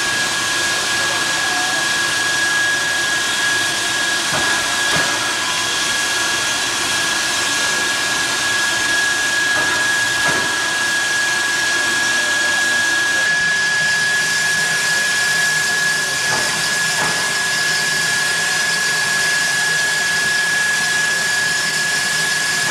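Steam locomotive No. 45 of the Skunk Train standing at rest and venting steam with a steady hiss. A thin, steady high tone runs through the hiss.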